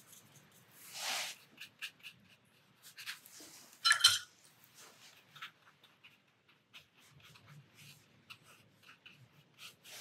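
Watercolour brush work: faint brush strokes and small clicks, a brief swish about a second in, and a short ringing clink about four seconds in, the loudest sound.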